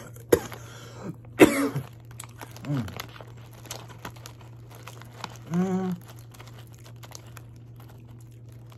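A person chewing crunchy flamin'-hot style corn puffs, with many small crunching clicks. A loud throat-clearing cough comes about a second and a half in, then a short falling 'mm' and, about halfway through, a held 'mm'. The snack bag crinkles lightly.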